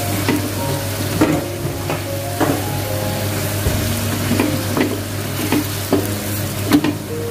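Ground spice paste with lemongrass and leaves sizzling in oil in a stainless-steel frying pan while a wooden spatula stirs and scrapes it. Irregular clacks of the spatula against the pan sound through it, the sharpest near the end.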